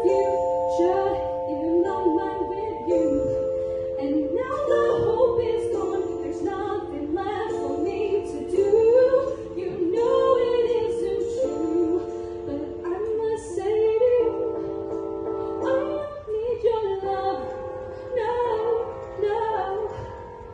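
Female soloist singing a musical-theatre ballad into a handheld microphone, amplified through PA speakers, over an accompaniment of long held chords.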